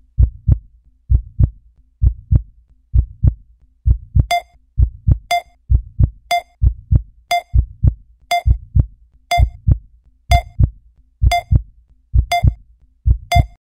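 Heartbeat sound effect, a low double thump about once a second. About four seconds in, a short high beep joins it on each beat, the blip of a film countdown leader counting down. Ten beeps in all, then both stop together.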